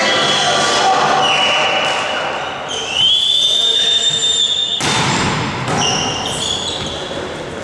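Volleyball match in play: ball hits and thuds with voices, several long high squeaking tones, and a burst of noise about five seconds in.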